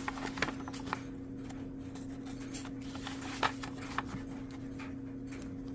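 Light handling sounds from an instruction booklet and its packaging: a few short clicks and rustles, the loudest about three and a half seconds in, over a steady low electrical hum.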